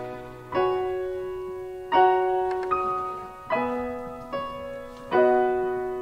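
Acoustic piano playing a hymn alone: a chord struck about every second and a half, each ringing and slowly fading, with a lighter note or two between them.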